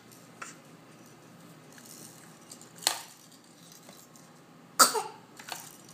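A baby sneezing: a few short, sharp bursts of breath, the loudest about five seconds in.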